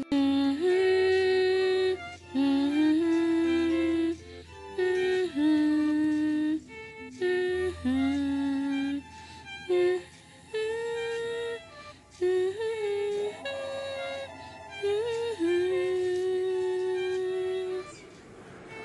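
A slow, lullaby-like melody of long held notes in short phrases, each broken off by a brief pause.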